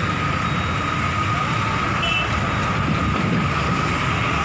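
Dense highway traffic going past close by: a steady roar of trucks and cars, with a thin steady whine running under it and a short high beep about two seconds in.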